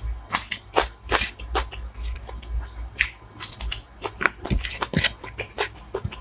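Close-miked eating: mouthfuls being chewed with irregular wet smacks and crisp crunches, about two or three a second.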